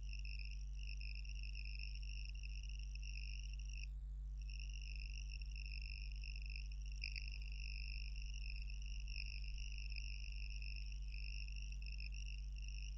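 Faint, steady, high-pitched animal trill in the background over a low electrical hum; the trill breaks off briefly about four seconds in.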